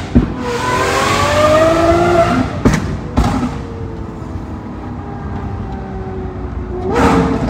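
Sports car engine accelerating hard, its pitch climbing for about two seconds. Two sharp cracks follow about half a second apart, then a steadier, lower engine note, with the engine revving up again near the end.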